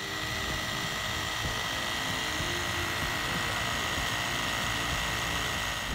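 A Baseus cordless tyre inflator's small electric compressor running steadily while pumping up a motorcycle tyre: a dense buzzing rattle with a steady high whine over it.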